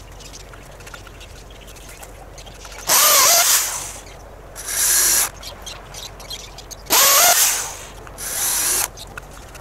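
Power drill run in four short bursts, in two pairs, working into the wooden frame. The motor pitch dips at the start of the first burst of each pair.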